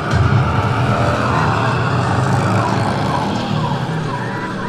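A motor vehicle engine running with a loud, steady low rumble, with short falling tones repeating over it in the second half.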